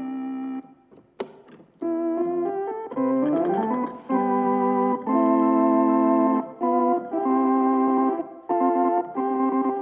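Galanti (GEM) Caravan R6 portable electronic organ being played. A held note is followed by a short pause with a click about a second in, then a few stepping notes and a quick upward run, then full chords held and struck again several times with short breaks.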